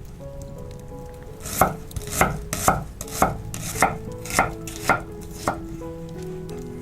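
Knife chopping on a cutting board: eight sharp strokes at about two a second, starting about a second and a half in.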